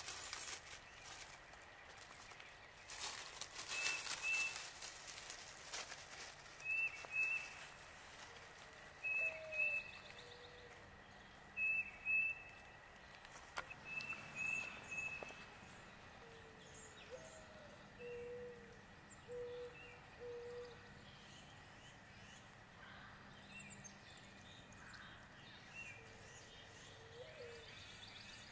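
Woodland birds calling: a higher two-note call repeated every two to three seconds, and lower calls, some with a rising slur, in short series. A brief rustling noise comes a few seconds in.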